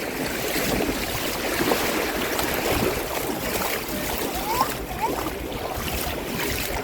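Shallow sea water sloshing and lapping at a beach, a steady wash of water noise, with two short rising cries about two-thirds of the way through.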